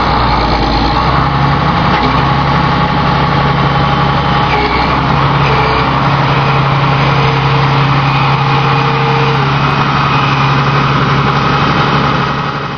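Harvest machinery, a combine or tractor, running steadily with a loud engine drone and mechanical noise. It fades out near the end.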